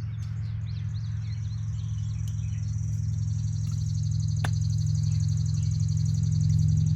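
Pool pump motor running with a steady low hum that grows gradually louder. Birds chirp in the first couple of seconds, and a high, finely pulsing buzz comes in about a second and a half in.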